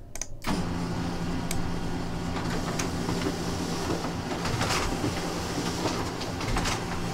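Printer running as it prints a page: a steady mechanical whirr with a low hum and a few light clicks, starting about half a second in.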